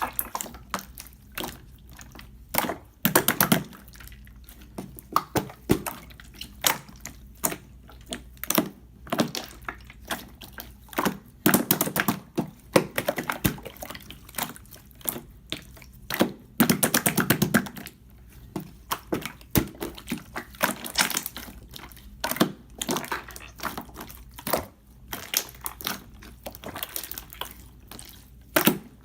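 Clear slime being squished and pressed by hand, giving runs of sticky clicks and small wet pops that come in clusters and bursts.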